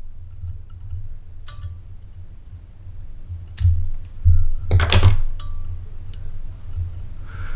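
A few light clicks from fly-tying tools at the vise as the thread is wound tight and the tail fibres are trimmed. The loudest cluster of clicks comes about five seconds in, over a steady low hum.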